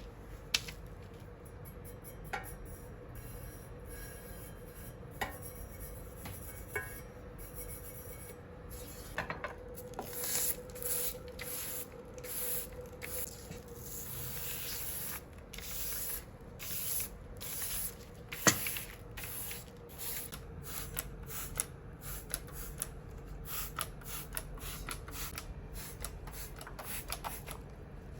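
Scrubbing and rubbing on a brass samovar during cleaning: sparse light clicks at first, then from about a third of the way in, fast, repeated rasping strokes, with one sharp knock midway. A faint steady hum sits underneath.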